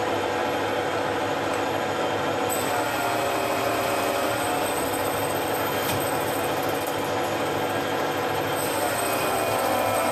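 Metal lathe turning down a steering-wheel boss: steady machining noise with a wavering, shifting whine from the cut.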